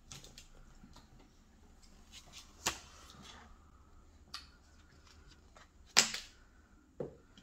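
Protective plastic cover being peeled off a new iPhone and handled: a few scattered short crackles and clicks, the loudest about six seconds in.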